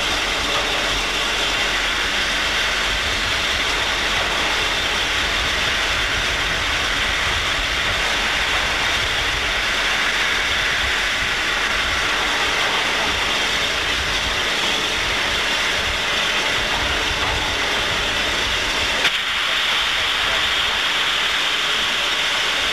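McCloud River Railroad #19, a 2-8-2 steam locomotive, standing with a steady hiss of escaping steam, some of it from its cylinders. Near the end there is one sharp click.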